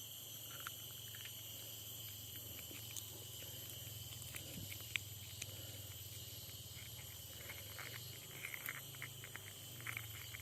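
Faint, steady high-pitched drone of an insect chorus, with scattered small clicks and rustles that grow more frequent in the last couple of seconds.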